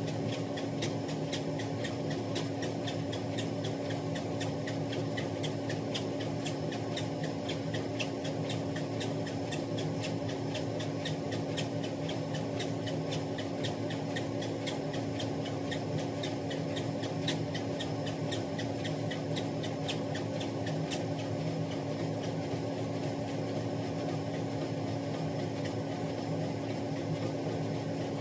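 Electric treadmill running with a steady motor hum, and regular footfalls of someone walking on the moving belt.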